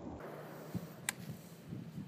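A quiet pause with faint background noise, broken by two small clicks: a dull knock about three-quarters of a second in and a sharper tick about a second in.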